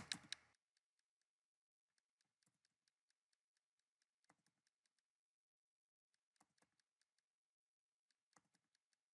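Faint computer keyboard keystrokes in about five short clusters of quick clicks, one every two seconds or so, with near silence between.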